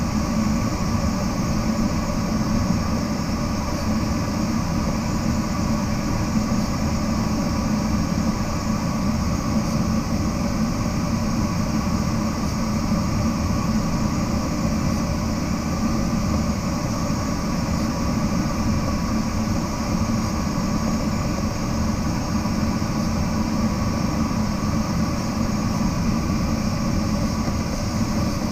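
Steady rush of air around a glider's cockpit in flight, even and unchanging throughout.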